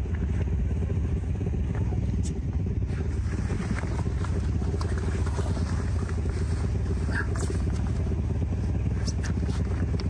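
An engine running steadily at a constant speed, a low, even hum with no change in pitch.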